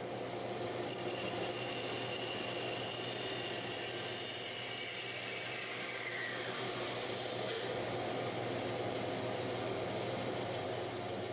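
Band saw running and cutting through a wooden drawer blank, slicing off its front and back ends. A steady motor hum under a high whine from the blade in the wood, which drops in pitch about six seconds in.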